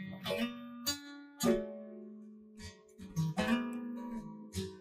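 Background music of plucked guitar notes, each note ringing and fading.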